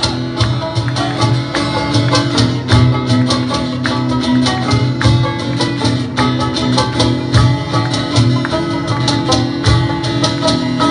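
Live band playing an instrumental passage: acoustic and electric guitars strummed over a steady hand-struck cajón beat.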